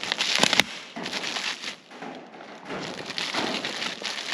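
Clear plastic bag crinkling and crackling as a rifle scope ring is unwrapped from it, with the sharpest crackles about half a second in.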